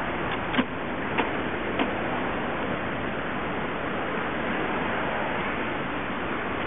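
Steady outdoor background noise, an even hiss, with a few light ticks in the first two seconds, the last three about half a second apart.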